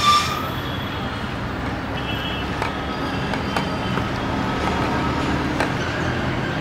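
Steady road traffic noise: vehicle engines running and passing, with a faint hum and occasional light ticks.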